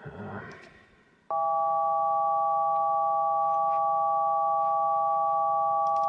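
Synthesized chord of steady pure sine tones, which stand for the light-foot and its root 2, root 3 and root 5 multiples turned into frequencies. The chord starts abruptly about a second in and holds perfectly level.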